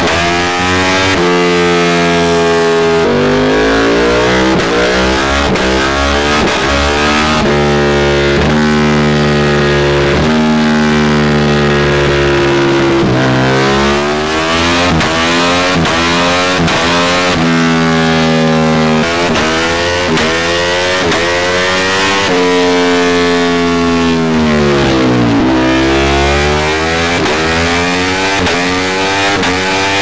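Ducati Panigale V4's V4 engine running through an Austin Racing exhaust under full throttle on a dyno. The pitch climbs and drops back over and over as it revs through the gears, and about three-quarters of the way through it falls away low before climbing again.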